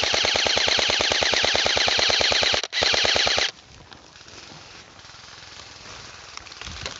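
Specna Arms EDGE SA-E06 airsoft electric gun firing full-auto: a long rapid rattle, a split-second break, then a short second burst that stops about three and a half seconds in. After that come fainter sounds of moving through forest undergrowth.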